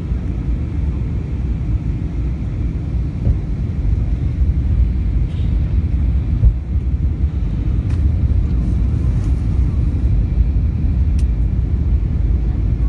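Steady low rumble of an airliner cabin in flight, the engines and airflow heard from inside the plane.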